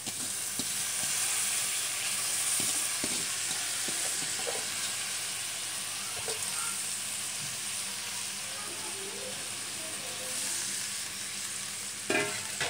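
Drumstick (moringa) leaves going into hot oil with fried onions in a kadhai, sizzling steadily. A metal spatula knocks and scrapes in the pan near the end as stirring begins.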